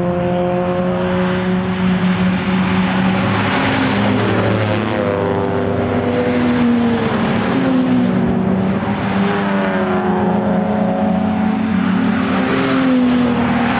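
Jaguar racing cars passing at speed one after another, several engines sounding together, their notes rising and falling as each car goes by.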